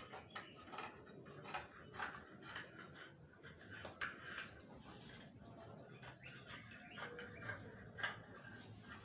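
Scissors snipping through sequinned lace fabric: quiet, uneven snips about twice a second.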